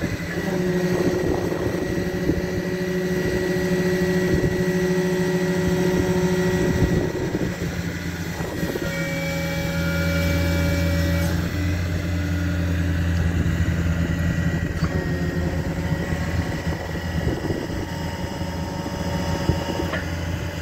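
Truck engine and digger derrick hydraulics running steadily, with several steady tones that shift pitch about 7 and 9 seconds in.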